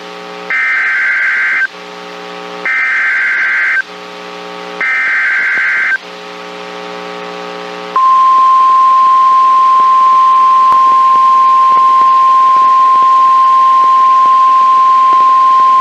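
NOAA Weather Radio emergency alert through a TFT EAS 911 receiver: three one-second bursts of the SAME digital header, a harsh two-tone data screech, with a low buzz in the gaps between them. About eight seconds in, the steady 1050 Hz warning alarm tone starts and holds. Together they announce a severe thunderstorm warning.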